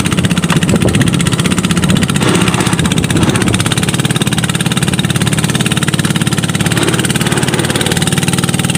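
A small boat's outboard engine running steadily under way, noisy, with an even throb.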